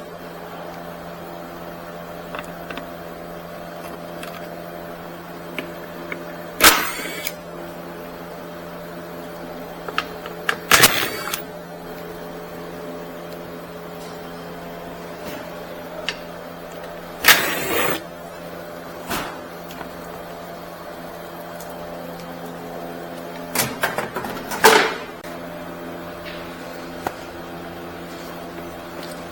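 Metal tools clanking against car parts a few times during starter-motor removal, over a steady background hum.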